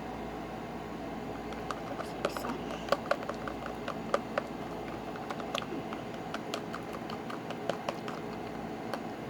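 Slime being stirred in a container with a mixing tool: irregular light clicks and taps of the tool against the container, starting about two seconds in, over a steady background hum.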